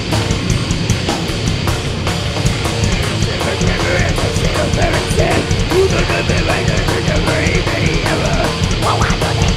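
Heavy metal band playing live: distorted guitars and bass over rapid, driving drumming. A higher wavering melody line joins about three and a half seconds in.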